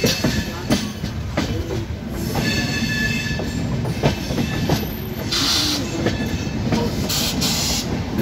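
Indian passenger train running into a station: wheels clattering over rail joints and points with repeated sharp clicks and some wheel squeal. About five seconds in, a rush of noise as an oncoming train passes close on the next track.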